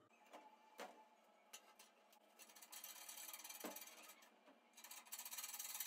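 Near silence, with a few faint clicks and a light scratchy rustle that comes and goes in the second half.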